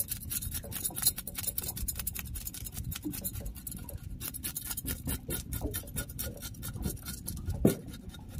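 Big kitchen knife scraping the scales off a whole tilapia on a round wooden chopping board, in quick repeated strokes several a second. Two sharper, louder knocks stand out, one about a second in and one near the end.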